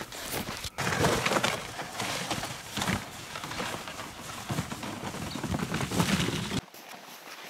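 Footsteps crunching in snow, an uneven run of crunches that stops suddenly near the end.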